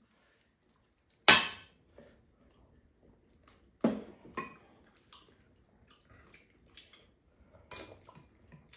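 Spoons and chopsticks clinking against ceramic bowls and a frying pan while eating: a few sharp clinks, the loudest about a second in, with softer taps between.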